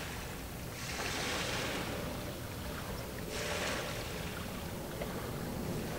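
Waves washing in, surging twice in a rush of hiss, about a second in and again a little past the middle, over a steady low rumble of wind on the microphone.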